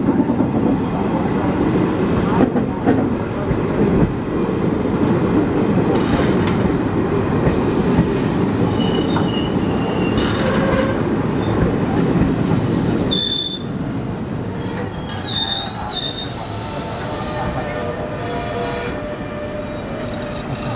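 A train running on the rails with a heavy, steady rumble. From about nine seconds in, high-pitched wheel squeal sets in as several thin steady tones over the quieter rumble, typical of the wheels grinding against the rail on a curve or through points.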